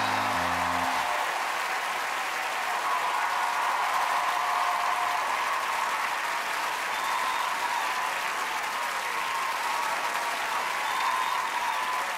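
Sustained applause. The last notes of the act's music end about a second in.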